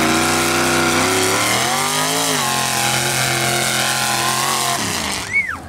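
Modified mud-racing truck's engine revving hard as it launches and pulls through the mud. The pitch climbs at the start, dips briefly about two seconds in, and fades away near the end, where a brief high sound follows.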